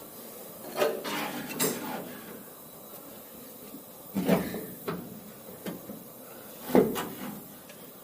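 A series of separate knocks and clunks of handling in a workshop, about six in all, each short with a brief ring; the loudest comes near the end.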